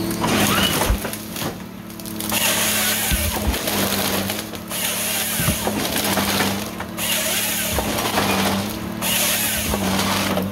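Log Max 7000XT harvester head working a stem, with wood cracking and splintering in repeated stretches a couple of seconds long, over the steady drone of the Tigercat 855 harvester's engine.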